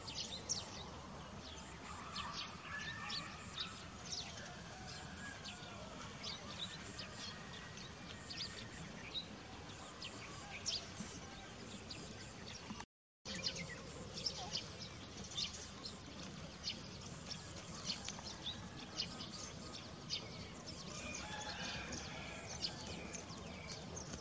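Small birds chirping in the background, short high chirps scattered irregularly over a steady outdoor hiss, with a brief cut to silence about halfway through.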